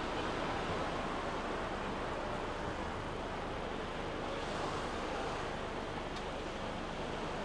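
Steady low engine rumble under an even wash of outdoor background noise.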